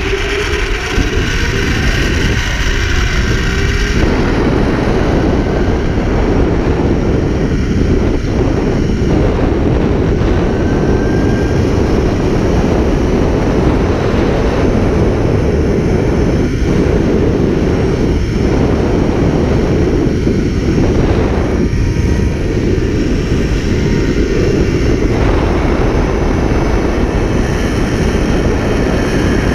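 Loud, steady wind noise buffeting the action camera's microphone as the rider rushes down a long zip line at 40 to 50 mph.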